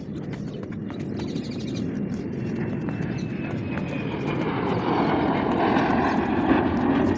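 Engine noise of a passing aircraft, a dense rumble with a faint high whine that grows steadily louder.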